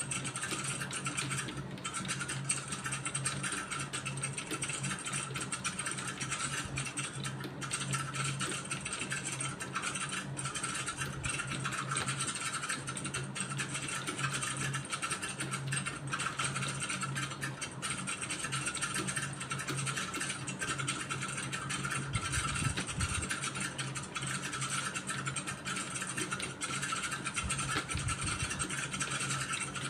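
Computer keyboard being typed on steadily: a continuous run of light key clicks, over a steady low hum.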